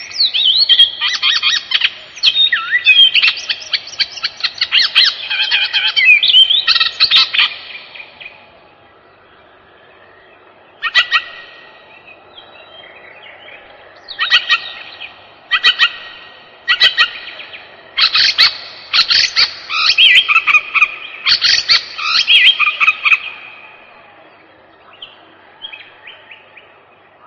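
Songbird singing in bursts of rapid chirps and trills, with a pause of about three seconds partway through and quieter phrases near the end.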